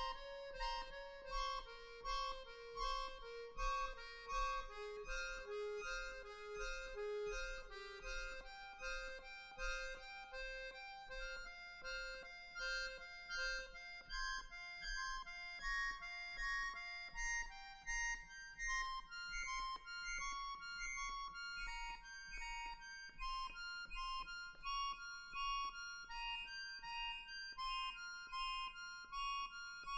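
Two accordions playing repeated chords in a steady pulsing rhythm. The lower notes drop out about a third of the way in and the chords move higher.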